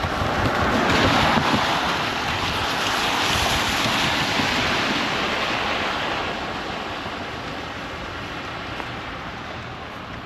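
Wind gusting outdoors in a snowstorm, rushing and buffeting the microphone; the gust swells over the first couple of seconds and slowly dies away.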